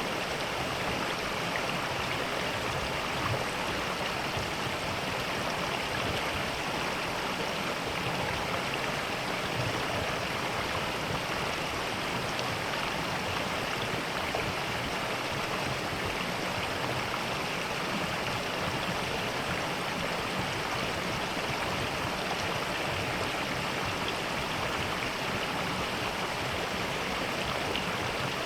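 Mountain valley stream flowing over rocks: a steady, unbroken rush of water.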